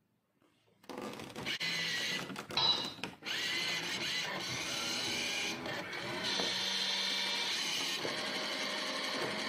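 A small motor whirring steadily, starting after a brief silence, with some irregular rattles and knocks in its first couple of seconds.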